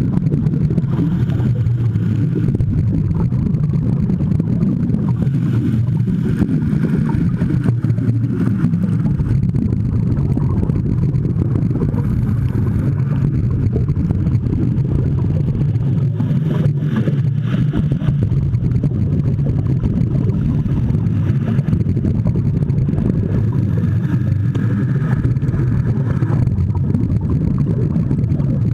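Steady, muffled low rumble of water noise picked up by a camera held underwater, with fainter higher rushes coming and going now and then.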